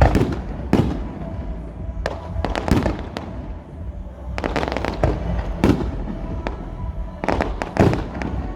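Fireworks going off: a string of sharp bangs and crackling bursts, the loudest right at the start and others coming every second or two.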